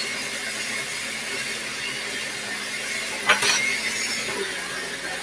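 Kitchen tap water running steadily into the sink while blender smoothie residue is rinsed off, with one sharp clatter a little past three seconds in.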